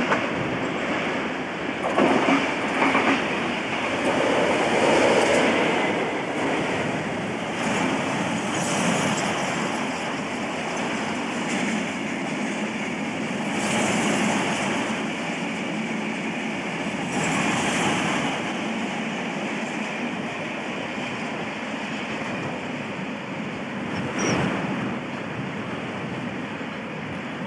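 A British Rail Class 59 diesel-electric locomotive with its two-stroke EMD engine passing close by, followed by a long train of aggregate hopper wagons rolling past. The wheels clatter irregularly over the points and rail joints, loudest in the first few seconds as the locomotive goes by.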